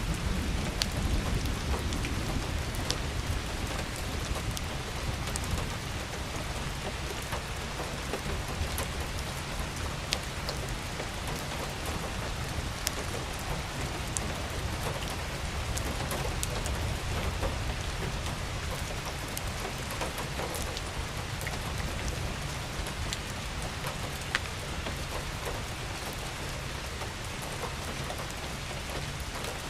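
Steady rain falling, with many separate drops ticking sharply on a surface. Underneath is a low rumble that swells about a second in and again about halfway through.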